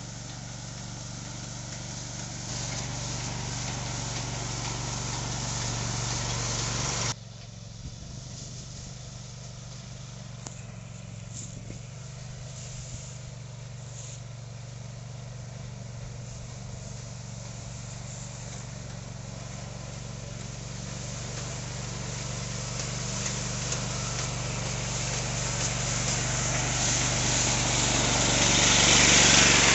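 Small engine of a two-wheel motor unit running steadily under load as it drives a HeuMax hay pusher through cut hay on a steep slope. The sound drops abruptly about seven seconds in, then grows steadily louder toward the end as the machine comes up close.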